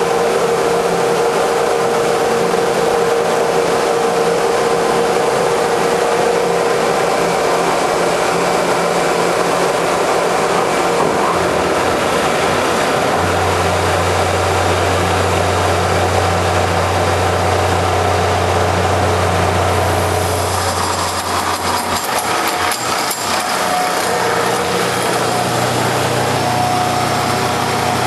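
Hydraulic automatic copy wood lathe running, a steady machine hum with several held tones. A deep hum comes in about twelve seconds in and drops away near twenty seconds, when a rougher, brighter noise takes over.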